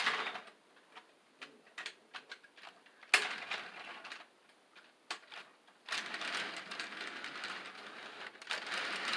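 HO scale model freight cars rolling past, their wheels clicking and rattling on the track: scattered clicks, one sharp click about three seconds in, then a steadier rattle over the last few seconds.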